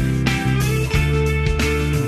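Background music: guitar over a bass line and a steady drum beat.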